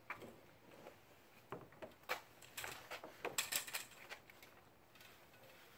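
Hobie kayak hull being rolled across Talic Seahorse stands into Thule Hullavator saddles: a few separate knocks, then a denser run of rattling clatter about two and a half to four seconds in.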